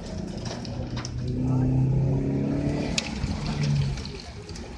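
Car engine accelerating: a pitched drone that swells about a second in and fades near the end, with a few sharp ticks over a steady wash of noise.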